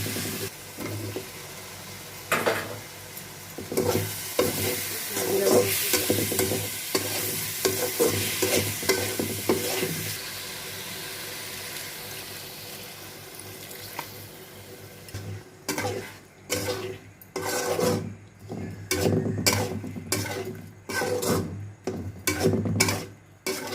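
Food sizzling in hot oil in a pan while a spoon stirs it. A little after halfway the sizzle dies down, and quick, separate stirring and scraping strokes of the spoon against the pan take over.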